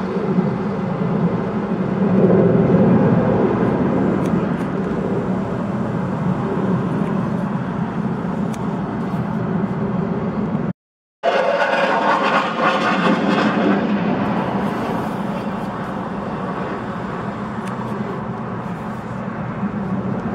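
Steady engine noise with a hissing wash, cut by a brief dropout about eleven seconds in, after which it sounds brighter and hissier.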